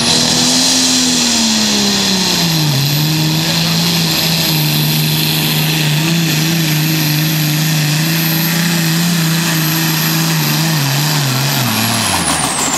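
Turbocharged diesel engine of a light pro stock pulling tractor running flat out under the load of the weight-transfer sled, with a high, steady turbo whistle over it. The engine note sags about two seconds in, holds steady through the pull, then drops away near the end.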